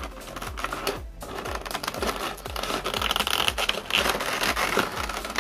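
Clear plastic blister tray from a figure box being handled and shifted on a table, crinkling and clicking. A soft background music beat runs underneath.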